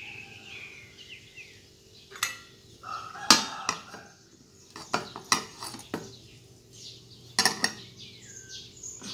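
A metal spoon clinking against the cooking pot and its contents about six times, the loudest a little over three seconds in. Small birds chirp in the background at the start and near the end.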